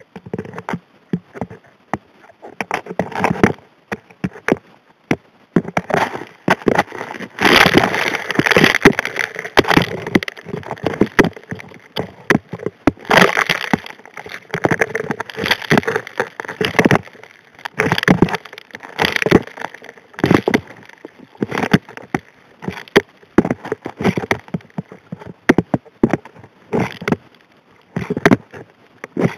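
Rocks and gravel clattering against the steel nozzle of a Model 625 HD P hand dredge as suction pulls them in, heard underwater. The knocks and clicks come in a rapid, irregular stream, thickest in spells about a quarter of the way in and again around the middle.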